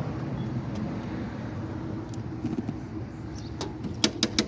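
Steady low hum of vehicle traffic. Near the end comes a quick run of sharp clicks as the payphone is handled: its handset, buttons or coin slot.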